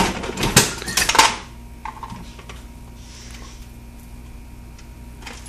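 Metal parts of a Hornady Lock-N-Load progressive reloading press clinking and rattling as it is handled, in a quick cluster of sharp clinks over the first second and a half. After that only a low steady hum and a few faint ticks remain.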